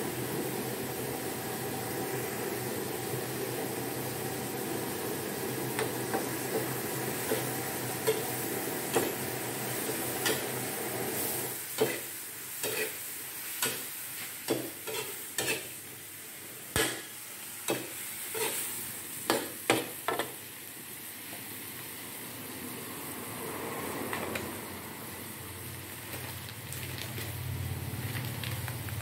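Squid, onion and peppers sizzling in a wok over a gas flame as a perforated metal ladle stirs and tosses them. In the middle, a run of sharp clanks and scrapes as the ladle strikes the wok.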